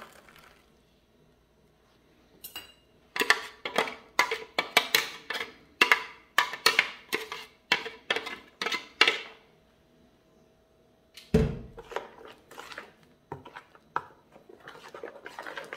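A kitchen utensil clacking against dishes: a run of sharp knocks about two to three a second, then one heavier thump about eleven seconds in and a few scattered knocks.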